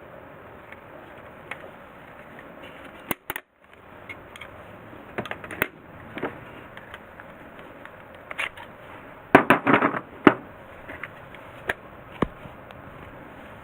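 Handling noises from a cordless flashlight: scattered sharp plastic clicks, with a quick clatter of clicks about nine to ten seconds in, over a steady low hiss.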